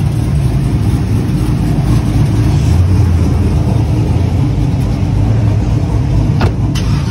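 Pickup truck engine idling with a steady deep rumble, with a couple of brief clicks near the end.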